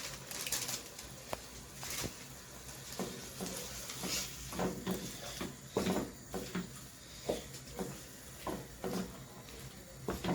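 A cooking utensil stirring vegetables in a pot of tomato sauce, with irregular scrapes and knocks against the pot over a low background hiss.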